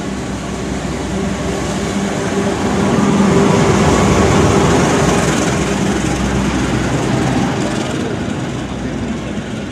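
CC 204 diesel-electric locomotive passing close by with its engine running in a steady drone. The sound swells to its loudest about three to five seconds in as the locomotive goes past, then eases into the rumble of the passenger carriages rolling by.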